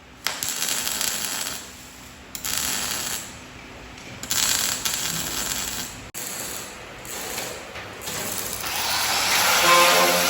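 Power tool working steel in several short bursts of about a second each, then a longer, louder run with a whine from about eight seconds in.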